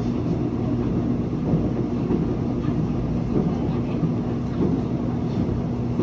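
Seoul Subway Line 1 electric train running at speed, heard from inside the train. A steady low rumble of wheels on rail carries a faint steady hum.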